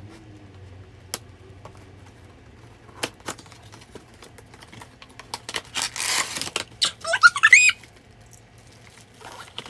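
Unboxing by hand: scissors snip at a cardboard box with a few light clicks. About six seconds in, the box and its plastic packaging rustle loudly, followed just after by a brief run of high squeaks.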